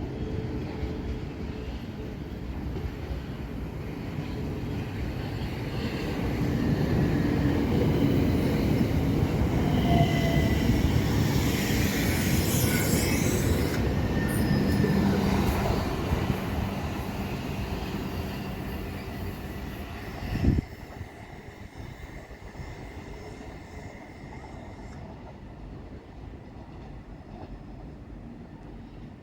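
Passenger train running along the platform, rumbling louder to a peak midway with a brief high wheel squeal, then fading away. A single sharp knock comes about twenty seconds in, after which it is quieter.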